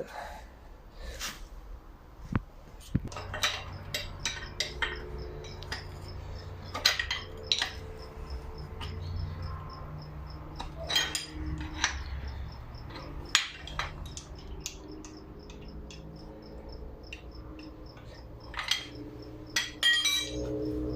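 Hand tools clicking, tapping and knocking against metal while the OEM selector unit of a 02M six-speed gearbox is pried off, in irregular bursts over a low steady hum.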